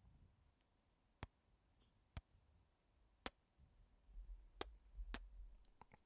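Quiet ASMR kissing close to the microphone: about five sharp lip smacks spaced a second or so apart, with a low rumble on the microphone about four seconds in.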